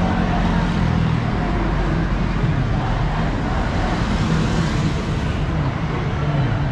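Road traffic on a wide multi-lane city road: a steady rumble of cars passing, with one vehicle swelling up as it goes by close, about four seconds in.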